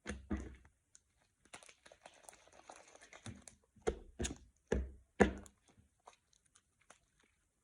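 Homemade glue slime being squished and pressed by hand: wet, sticky crackling, then four soft squelching thuds.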